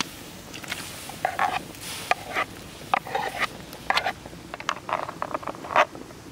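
Metal spoon scraping and tapping on a wooden tray as cooked catfish flesh is picked off the bones: a run of short, irregular scrapes and clicks, the sharpest near the end.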